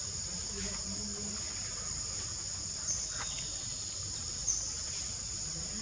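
Steady high-pitched buzzing of a forest insect chorus, with a few brief high chirps over it.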